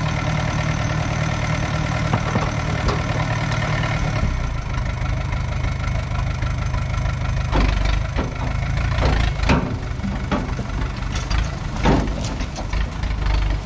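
Universal tractor's diesel engine running steadily, its note changing about four seconds in, with a string of sharp knocks and clanks over the second half.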